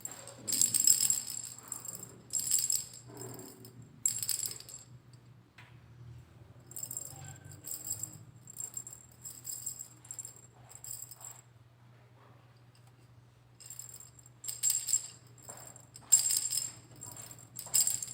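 Montessori sound-box cylinders shaken by hand in turns, giving short rattling bursts. The cylinders are being compared one by one against the one picked as the softest. The shakes are louder near the start and near the end, fainter in the middle.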